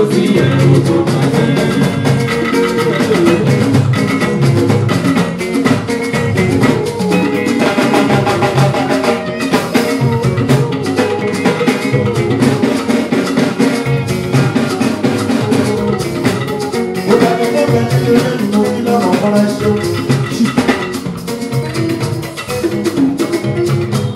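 A live band playing: electric and bass guitars over a steady drum and percussion beat.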